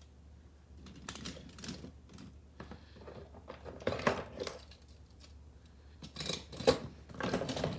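Die-cast toy monster trucks clattering and clicking against one another as a hand rummages through a pile of them, in irregular bursts of rattles that are loudest about four seconds in and again near the end.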